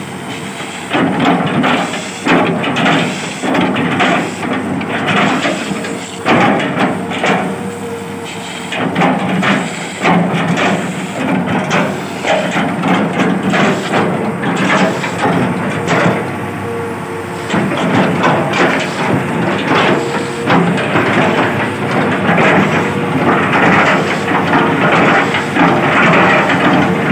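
Excavator chopping bucket repeatedly striking and slicing through a felled oil palm trunk, giving irregular heavy chops and cracks of fibrous wood every second or so. Under the chops the excavator's engine runs steadily.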